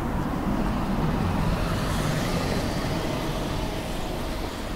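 A car driving past close by, its tyre and engine noise swelling about two seconds in and easing off, over a steady low traffic rumble.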